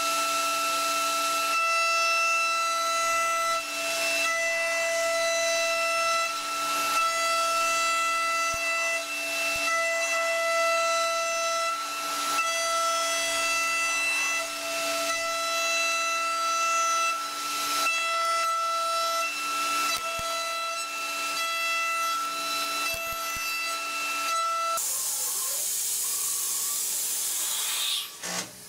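Datron high-speed CNC mill's spindle whining at a steady pitch while the cutter face-mills an aluminium plate, the cutting noise swelling about every second and a half with each pass. Near the end the whine stops and a loud hiss takes over.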